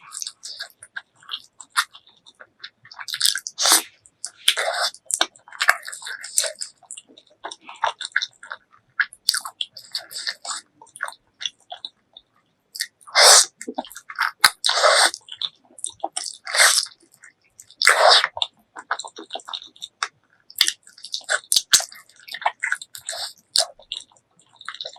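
Close-miked chewing of spicy pork leg curry and rice: irregular wet smacks and clicks of the mouth, with a few louder bites near the middle.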